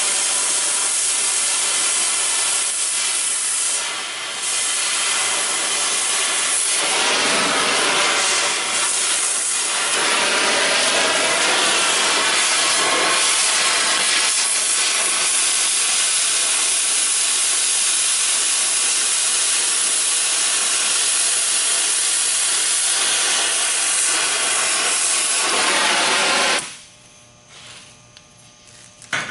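Oxy-fuel cutting torch hissing steadily as it burns through steel plate. It dips briefly about four seconds in and cuts off suddenly near the end when the torch is shut off.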